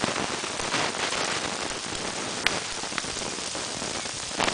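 Pizza sizzling in a Fry-Bake pan heated by an alcohol stove: a steady frying hiss with a few sharp pops in the second half.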